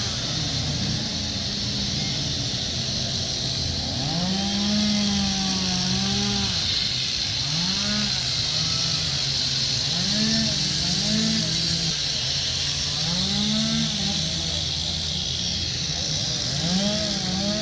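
Chainsaws running together, their throttles opening and easing off every second or two in overlapping revs over a steady high hiss.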